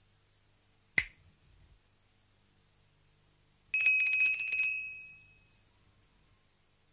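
A single sharp snap about a second in, then a small bell rung rapidly for about a second, its ring fading out.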